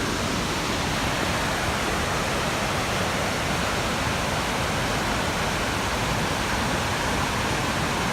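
Rushing water of a river running under a bridge: a steady, even rush with no breaks.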